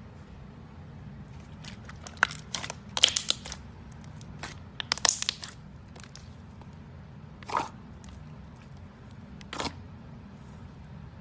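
Slime with small beads mixed in being squeezed and pressed by hand, giving clusters of sharp crackles and pops about two and five seconds in, then two single pops later.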